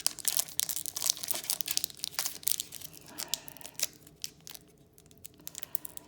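Foil wrapper of a Pokémon card booster pack crinkling and tearing as it is worked open by hand; the pack is stubborn and hard to tear open. The crackling eases off for a moment about four seconds in.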